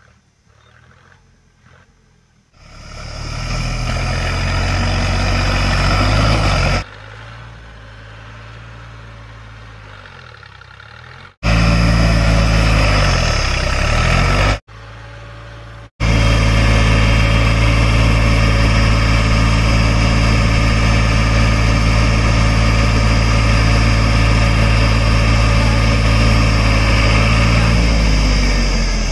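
Three-cylinder diesel engine of a Deutz-Fahr Agromaxx 4050E tractor running steadily with a nine-tine cultivator hitched. It is faint at first, comes up loud a couple of seconds in, and its loudness jumps and drops abruptly a few times.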